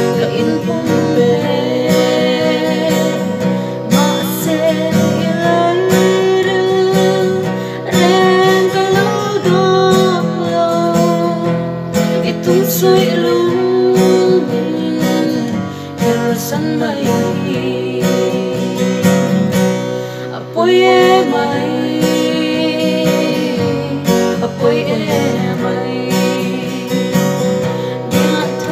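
Acoustic guitar strummed as accompaniment to a woman and a man singing.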